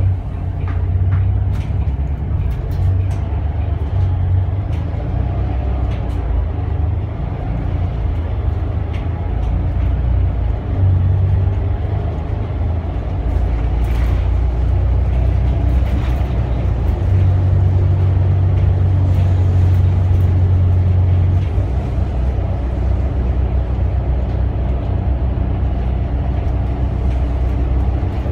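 Volvo B8RLE bus's Volvo D8K320 diesel engine and ZF EcoLife automatic gearbox heard from inside the cabin while driving: a steady low drone that shifts in strength and pitch a few times. Scattered light clicks and rattles sound over it.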